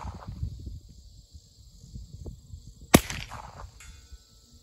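A single shot from a Smith & Wesson SW22 Victory .22 LR pistol about three seconds in: a sharp crack followed by a short echo. The echo of the previous shot is dying away at the start.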